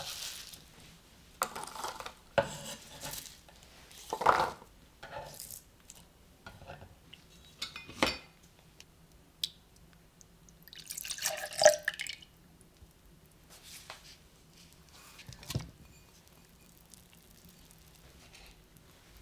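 Kitchen prep sounds: a few knocks and clinks of bowls and utensils on the counter, and about ten and a half seconds in, dark liquid poured and splashing into a glass blender jar for about a second and a half, the loudest sound.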